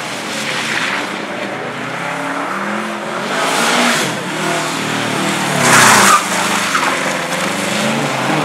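Amateur rally car at race pace, its engine revving up and down through a slalom, with the tyres skidding in noisy bursts; the loudest skid is about six seconds in.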